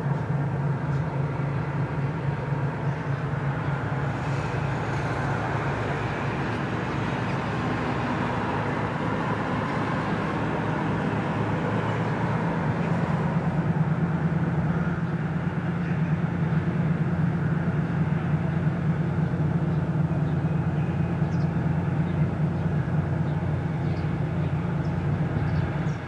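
2TE10U diesel locomotive's 10D100 two-stroke opposed-piston diesel engines working under load: a steady low drone with a fast even beat, growing louder about 13 seconds in.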